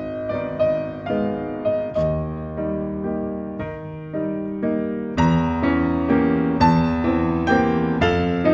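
Background piano music: gentle notes and chords played in a steady rhythm.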